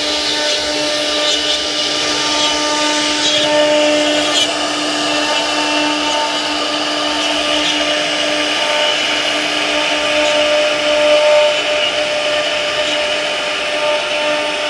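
CNC router spindle running steadily while its bit carves wood. A steady whine of a few tones sits over a hiss of cutting.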